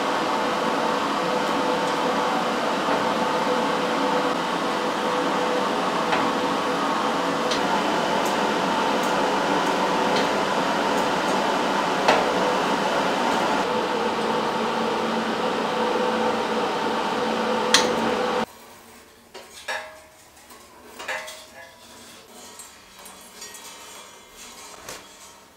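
Electric-motor-driven chainsaw chain on a homemade firewood processor's Husqvarna bar, running steadily with a few sharp ticks, cutting off abruptly about 18 seconds in. Faint light taps and handling sounds follow.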